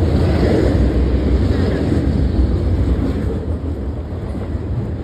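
The last cars of a passing train rumbling over the tracks, a steady low rumble mixed with wind buffeting the microphone. It eases a little after about three seconds as the end of the train goes by.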